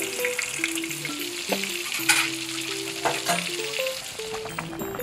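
Donggeurangttaeng, small Korean meat-and-vegetable patties, sizzling as they pan-fry in oil, with a spatula knocking against the pan a few times. A simple melody of background music plays underneath.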